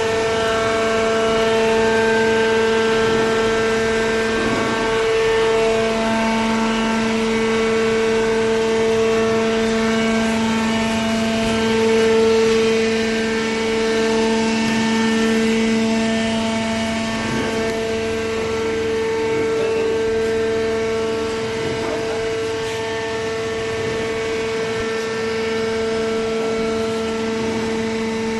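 Horizontal hydraulic waste paper baler running: a steady machine hum with a strong pitched whine that swells slightly a few times.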